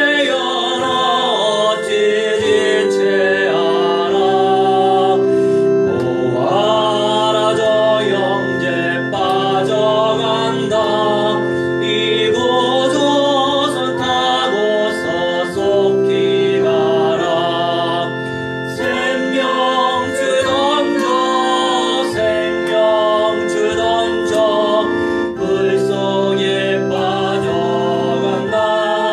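A man singing a hymn into a microphone while accompanying himself on an electric keyboard with sustained, organ-like chords.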